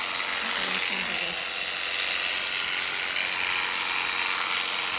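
Electric sheep-shearing handpiece running steadily as it clips the fleece off a Finnsheep.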